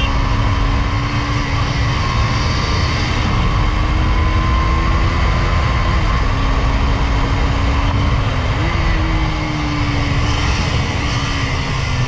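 KTM Duke 250's single-cylinder engine running hard at road speed, with heavy wind rush across the microphone. The engine note climbs slowly, jumps up sharply once about eight and a half seconds in, then sinks slowly.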